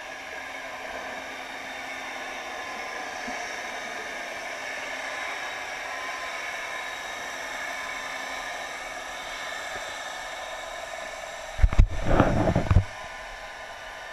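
Underwater ambience picked up by a GoPro Hero 3 in its waterproof housing: a steady hiss with faint steady tones. Near the end a loud, low, rough burst lasts about a second.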